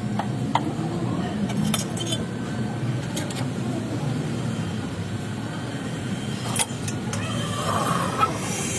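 A vehicle running with a steady low rumble, broken by a few scattered clicks and clinks.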